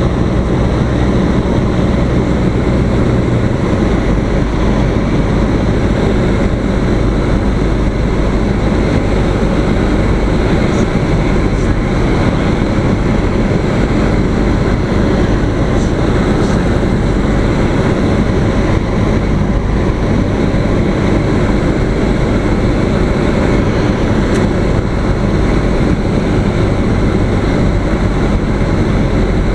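Single-engine light aircraft's piston engine and propeller droning steadily inside the cockpit, mixed with airflow noise. The low engine note changes about three and a half seconds in.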